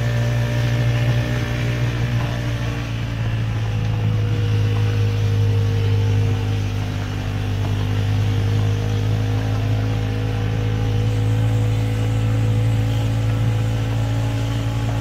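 Mini buggy's engine running at a steady pitch while the buggy drives along, a strong low hum that hardly changes.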